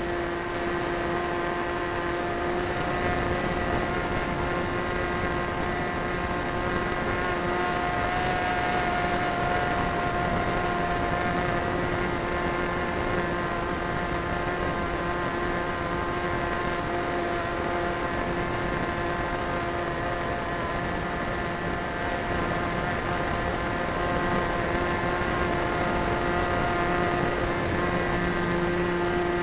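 Super Tigre .90 two-stroke glow engine of an RC model plane running at a steady high pitch in flight, heard from a camera on the plane's tail under a steady rushing noise.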